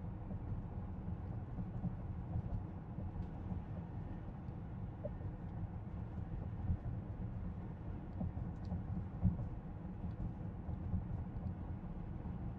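Steady low road and tyre rumble inside the cabin of an electric Tesla Model X cruising at about 40 mph.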